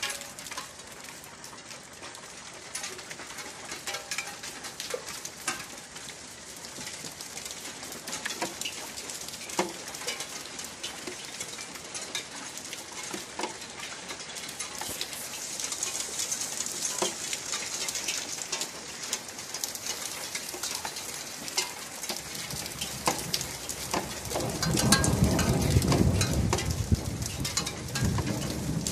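Rain falling on a courtyard's concrete and tiled roofs, a dense patter of drops. About twenty-two seconds in, a low rumble of thunder swells and rolls on for several seconds.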